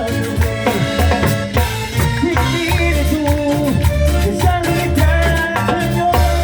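Latin dance music in a salsa style, with a steady pulsing bass line and percussion.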